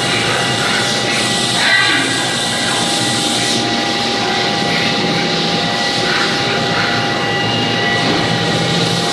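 Steady drone of CNC machining centres running on a factory floor, a broad noise with several steady whining tones, a brief louder swell about two seconds in and the high hiss easing off a little later.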